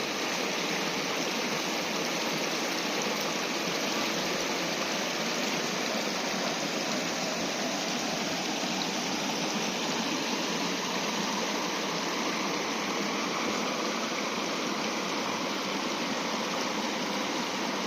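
Fast-flowing river rushing steadily, an even, unbroken sound of running water.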